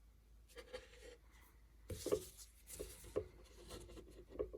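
Faint rubbing and rustling with a few soft knocks as a stitched sample is handled, in several short bursts.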